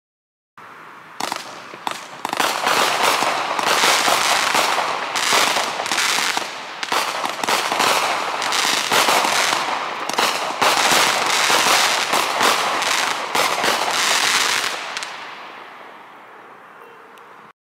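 Winco Fireworks' Three Monkeys consumer firework cakes firing: a dense run of launches and sharp bursts for about twelve seconds, then dying away before cutting off near the end.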